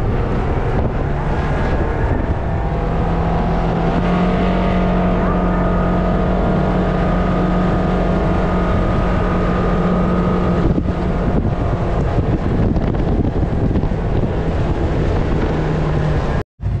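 A motor vehicle's engine running steadily under way, with wind buffeting the microphone. The sound drops out for an instant near the end.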